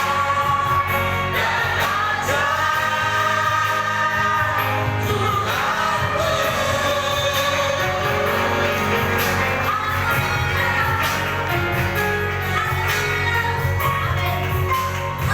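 Live church worship music: a band playing with singers, drums keeping the beat.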